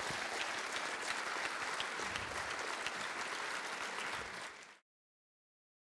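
Audience applause, a dense patter of many hands clapping that eases off slightly, then cuts off suddenly a little over a second before the end.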